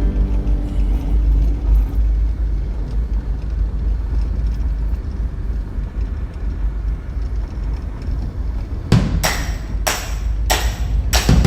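Steady low rumble of wind buffeting the microphone at the beach. About nine seconds in, a beat of sharp percussive hits, about two a second, starts up in the background music.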